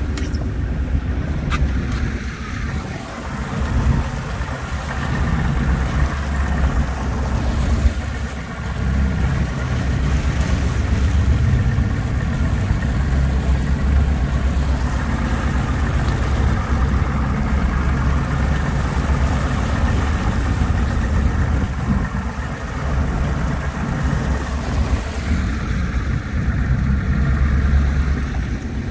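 Yamaha outboard motor running steadily at trolling speed, with wind rumbling on the microphone and water washing past the boat.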